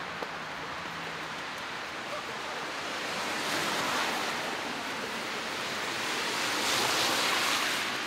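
Rushing hiss of snowy street ambience that swells twice, once about halfway through and again near the end.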